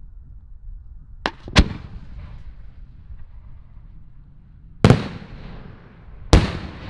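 Aerial firework shells bursting: four sharp bangs, two close together just over a second in, then two more about a second and a half apart near the end, each trailing off in an echoing rumble.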